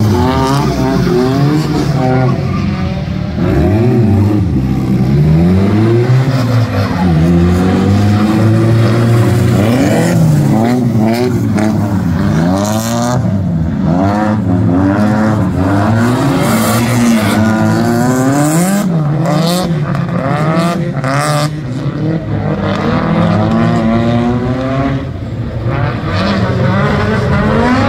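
Engines of drift cars revving up and down over and over as they slide through wet corners. The pitch rises and falls every second or two, and more than one engine is often heard at once, over the noise of tyres on the wet track.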